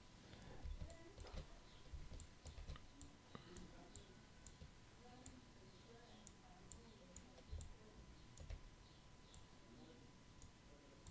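Faint computer mouse clicks at irregular intervals, about one a second, over quiet room tone with a thin steady hum.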